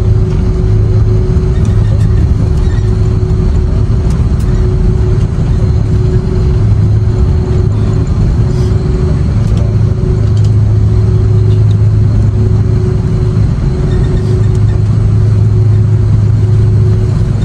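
Loud, steady cabin noise of an Airbus A330-300 on its landing roll: jet engine and rushing air, with a strong low hum and a steady mid-pitched tone.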